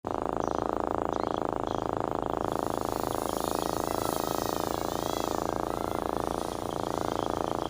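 Brushless motors and propellers of a 5-inch FPV racing quadcopter buzzing steadily. The buzz starts suddenly, with the pitch wavering slightly in the middle.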